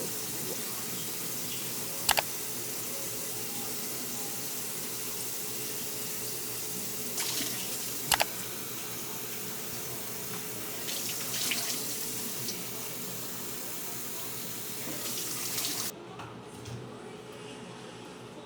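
Water running steadily from a tap into a sink, with two sharp clicks along the way. The rush of water stops about sixteen seconds in, leaving a quieter background.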